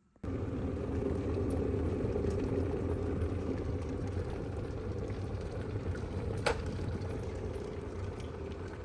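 PUKOMC 1.7 L stainless steel electric kettle heating water, a steady low rumble as the water nears the boil, with a single sharp click about six and a half seconds in.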